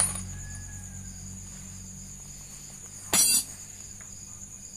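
Insects chirping steadily in the background: a constant high trill with a quicker pulsing call beneath it. About three seconds in comes one short clatter of metal as the clutch-cover bolts and tools are handled.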